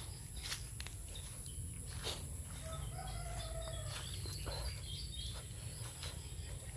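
A rooster crows once, briefly, about three seconds in, over footsteps rustling through dry leaves.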